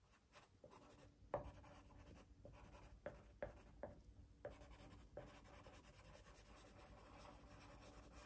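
Faint pencil strokes scratching on paper while foliage is filled in on a tree drawing: a string of short, quick strokes over the first five seconds, then quieter, steadier scribbling.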